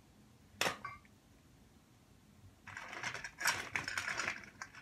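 A single knock, then about two seconds of small hard makeup items clattering and rattling together as they are rummaged through, with a few separate clicks near the end.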